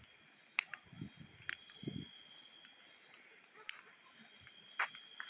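Bonfire of piled wood burning, with sharp single pops from the burning wood every second or so, over a steady high insect chirring. Two short low thumps come about one and two seconds in.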